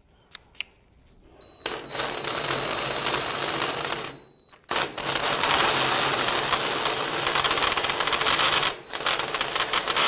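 Cordless drill driving a hole saw through a steel tube: the saw teeth grind and chatter in the metal, in three runs starting about a second and a half, four and a half and nine seconds in, with short pauses between.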